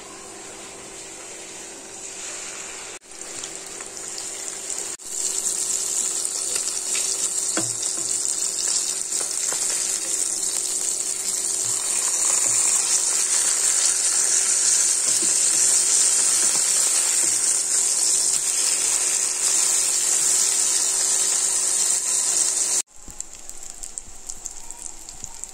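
Pomfret frying in hot oil in a nonstick pan: a steady sizzle that turns louder about five seconds in and drops abruptly near the end, with a steady hum underneath.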